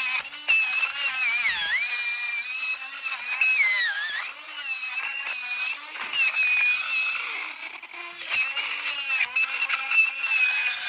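Handheld rotary tool spinning a burr that is drilling out the plug of a brass euro lock cylinder: a steady high whine whose pitch sags several times as the burr bites into the pins and chambers, then recovers.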